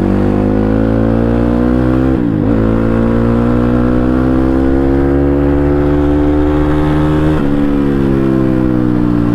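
CX300C motorcycle engine running through an exhaust with its dB killers removed, loud and unbaffled, pulling steadily with the pitch slowly rising. The pitch drops abruptly about two seconds in and again near the end, as the rider shifts up a gear.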